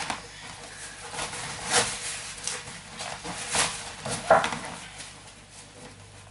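Heavy canvas bag being unzipped and handled: a series of short rasps and fabric rustles, the loudest about four seconds in.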